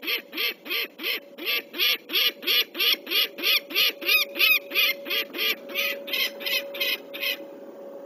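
Peregrine falcon giving its harsh alarm cacking, a long run of loud 'kak' notes about three to four a second, stopping abruptly near the end: alarm at an owl near the nest.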